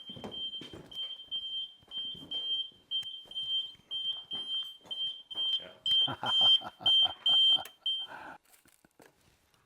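Electronic alarm beeping: a high, steady-pitched tone pulsing rapidly on and off for about eight seconds. It grows louder about six seconds in, with rhythmic lower pulses joining it, then cuts off.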